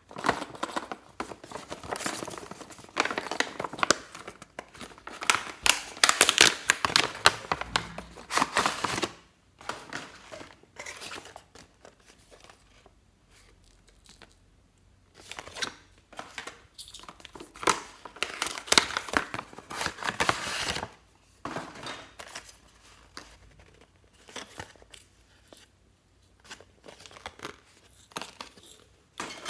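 Toy doll boxes being unpacked by hand: clear plastic window packaging and cardboard crinkling and rustling. There are two long bouts of dense crinkling, with scattered lighter rustles and clicks between and after them.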